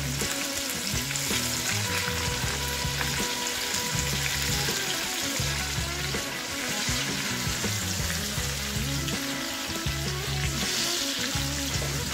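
Flour-coated chicken pieces deep-frying in hot oil in a saucepan: a steady sizzling hiss of bubbling oil, a little stronger near the end.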